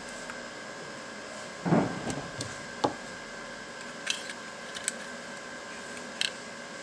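Handling noise of wires and a small circuit board being worked by hand inside a metal lamp base: a brief rustling scrape about two seconds in, then a sharp click and a few light taps. A faint steady hum and high whine run underneath.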